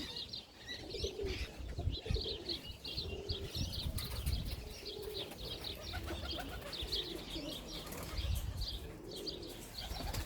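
Domestic pigeons cooing in repeated low phrases, with many short high chirping calls throughout and an uneven low rumble underneath.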